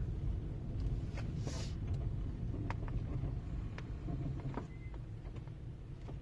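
Low, steady rumble of a car heard from inside the cabin as it moves slowly, with a few scattered light clicks and a brief hiss about a second and a half in.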